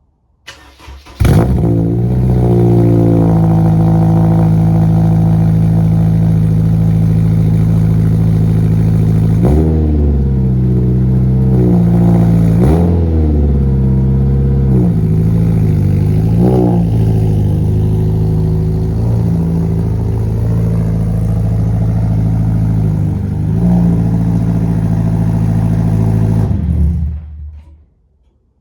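Honda S2000 inline-four with a single-exit aftermarket exhaust, cold-started: the starter cranks briefly and the engine catches, then idles steadily. The revs rise and fall three times, and the engine cuts off near the end.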